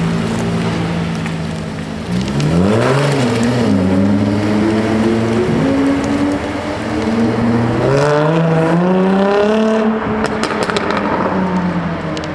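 Jaguar F-Type V6 S's supercharged V6 engine and exhaust: running steadily, then revving up sharply about two seconds in and climbing slowly. It rises again from about eight seconds in, then drops back with a burst of exhaust crackles and pops.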